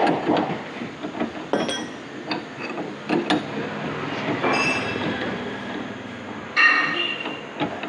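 Metal steering-rack parts being handled and fitted: irregular clinks and clanks of metal on metal, with a short ringing metallic squeal near the end.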